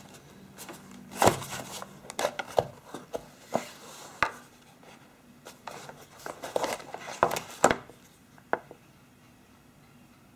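Hands handling phone packaging: the lid slides off the box and the handset is lifted out of its tray, giving scattered taps, clicks and rubbing. It falls quiet after about eight seconds.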